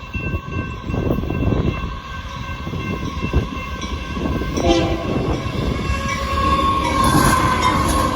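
Union Pacific freight locomotive's air horn holding a steady chord, over the rumble of the approaching intermodal train, which grows louder toward the end.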